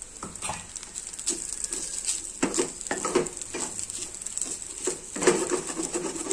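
A spatula stirring and scraping fish roast in a steel frying pan, in irregular strokes and knocks, with a faint steady sizzle of the food frying underneath.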